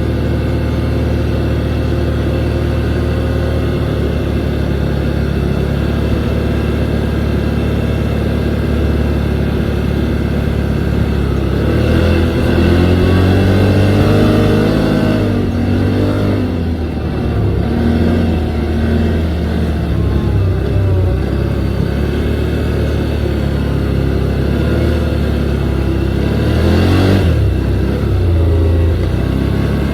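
An engine running steadily, revving up and back down about twelve to sixteen seconds in.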